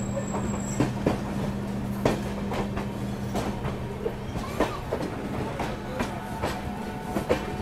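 Express passenger train running along the track, heard from on board: wheels clacking irregularly over rail joints, over a steady low hum.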